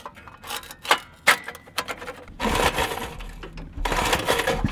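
Briggs & Stratton 5 hp flathead engine's just-repaired recoil starter: a few clicks, then the rope is pulled twice, each pull a rasping whir of about a second, and the engine does not fire.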